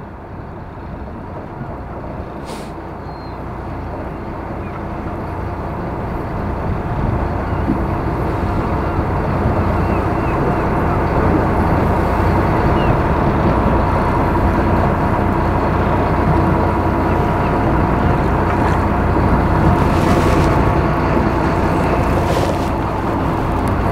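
Fishing boat's engine running steadily under wind and sea noise, growing louder over the first ten seconds or so, then holding.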